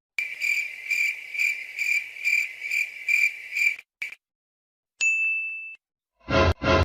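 Cricket chirping sound effect: a steady shrill trill pulsing about twice a second for three and a half seconds. A short single ding follows about five seconds in, and a voice begins near the end.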